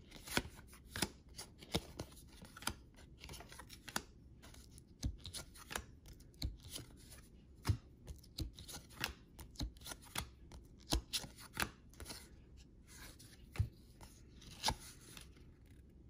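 Trading cards handled one at a time: a run of light, irregular taps and flicks, one or two a second, as each card is slid off the stack.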